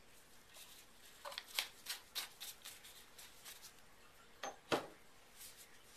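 Handling of a plastic bottle with gloved hands: a quick run of small clicks and crinkles, then two sharper knocks close together a little past halfway.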